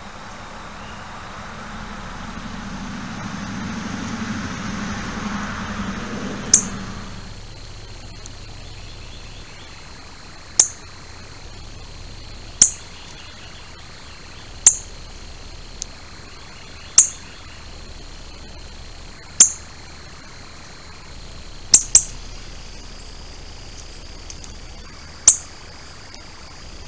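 Northern cardinal giving sharp, high chip calls close by, single notes about every two seconds and once a quick pair, starting about seven seconds in. Before them a low rumble swells and fades away.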